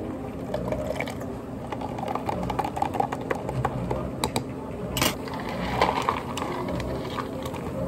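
A drink being made in a tall clear plastic cup: green syrup squeezed from a bottle, a long spoon clicking against the cup as it stirs, then liquid poured in from a plastic pitcher. Many small clicks throughout, with one sharp click about five seconds in.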